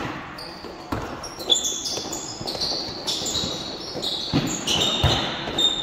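Basketball game play: a ball bouncing a few times at irregular intervals, with many short, high squeaks of sneakers on the court.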